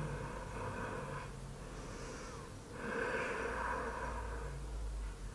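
A woman breathing slowly and audibly as she holds a deep seated forward stretch: one long breath ending about a second in, then another long breath from about three seconds in.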